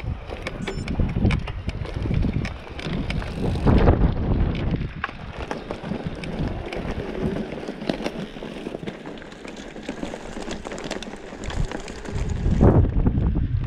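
Mountain bike rolling over a rough dirt track: tyre noise with frequent rattles and knocks over bumps, and wind buffeting the microphone. It eases off briefly past the middle and gets louder again near the end.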